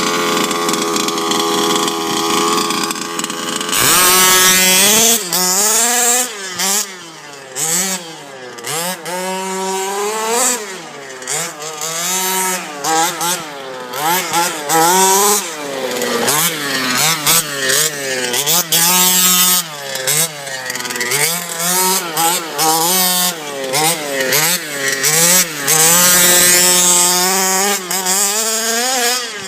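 Small two-stroke petrol engine of a 1/5-scale RC truck, running at a steady speed for a few seconds, then revved up and down over and over in quick throttle blips.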